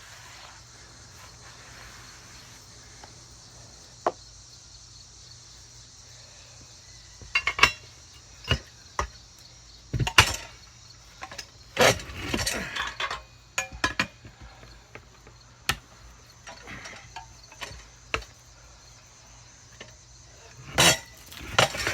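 Scattered metal clanks, clinks and knocks from a manual tire changer and tire tools working a tire onto a Willys Jeep wheel rim. They start about a third of the way in after a mostly quiet stretch.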